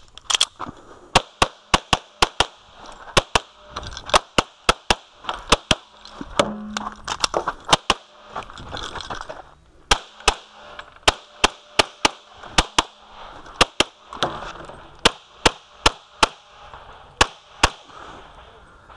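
Glock 24 pistol in .40 S&W fired rapidly through a practical-shooting stage: shots mostly in quick pairs, in strings broken by short pauses for moving and reloading, the last shot a little over a second before the end.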